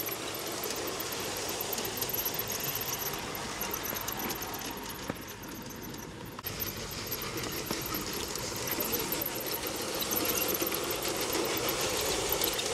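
LGB G-scale model train running over garden railway track. It is a red diesel locomotive pulling its cars. The running noise drops for a couple of seconds near the middle and grows again toward the end.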